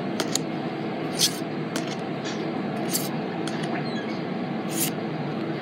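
Pokémon trading cards being handled and flipped through one by one: a handful of short, sharp card flicks and clicks over a steady background hiss.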